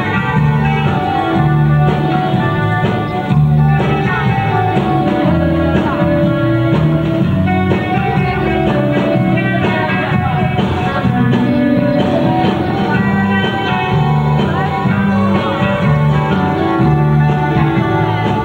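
Loud music playing continuously, with sustained notes over a repeating bass line.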